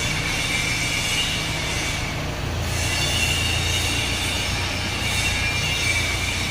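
Drum wood chipper running: a steady mechanical whine with high squealing tones over a low hum, the hum dropping in pitch about two and a half seconds in.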